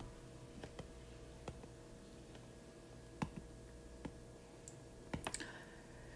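Stylus tip tapping on a tablet's glass screen during handwriting: faint, scattered light clicks, with a quick cluster of three about five seconds in.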